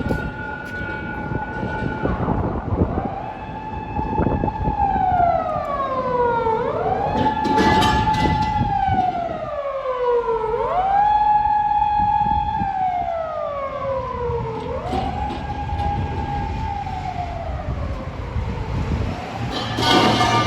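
Electronic siren of a Hokkaido Gas emergency vehicle on an emergency run: a high wail that rises quickly, holds, then slides slowly down, repeating about every four seconds, with vehicle rumble underneath.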